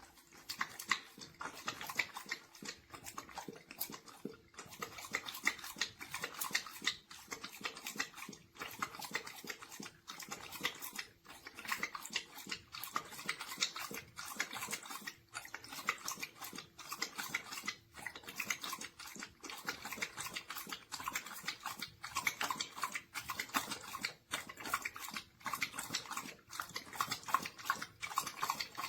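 Dog lapping water from a pet water fountain: a quick, irregular run of wet laps, several a second, broken by short pauses.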